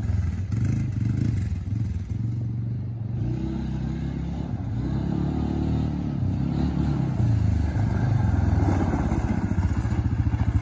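Suzuki KingQuad ATV engine running as it is ridden along the road, its note rising and falling with the throttle. It grows fainter in the middle as the quad rides off and louder near the end as it comes back toward the camera.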